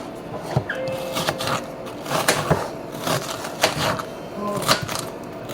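A series of irregular sharp clicks and knocks, roughly two a second, over a faint steady hum.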